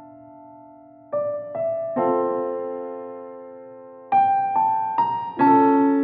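Background piano music, slow and soft: a held note fades for about a second, then chords are struck one after another and left to ring.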